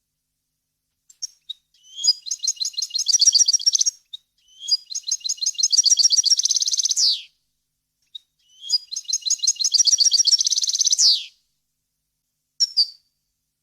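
European goldfinch singing: three fast trilled phrases of rapidly repeated high notes, each ending in a falling sweep, with a few short single call notes before and after.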